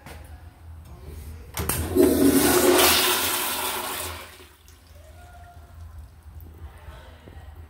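Public restroom toilet flushing: a sudden loud rush of water about one and a half seconds in, dying down some two and a half seconds later.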